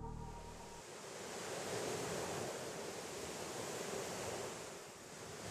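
Sea waves washing on the shore: a soft, even rush of surf that swells and eases, dipping briefly near the end.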